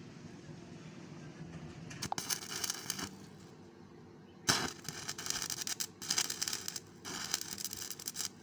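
Electric arc welding: the arc crackling and sizzling in four short bursts of about a second each, separated by brief pauses, as when tacking or laying short beads.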